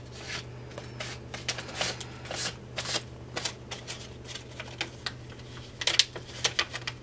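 Self-adhesive paper wall-patch tape being folded and its backing peeled apart by hand: irregular papery crackles and ticks, thickest about six seconds in.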